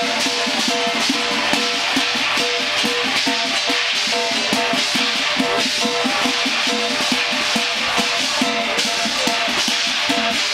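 Chinese lion dance percussion playing without a break: rapid drum strokes under continuous cymbals, with a gong ringing through.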